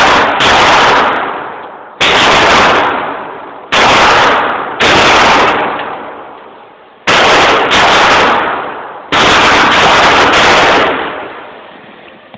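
A .45-calibre pistol fired shot by shot, about eight shots one to two seconds apart. Each shot is very loud, with a long echoing decay off the walls of an indoor range.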